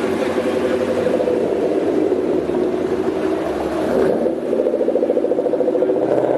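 A vehicle engine running with a steady rumble, which pulses evenly and rapidly for a couple of seconds in the second half.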